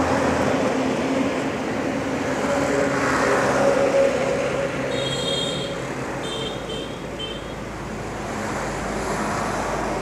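Road traffic: the steady hum of motor vehicle engines going by, with a few short high-pitched beeps about five to seven seconds in.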